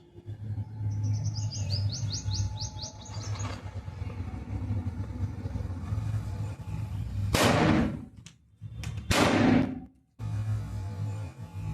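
Background music with a steady low beat, overlaid near the start by a quick run of about ten high rising chirps, then two loud hissing bursts about a second and a half apart.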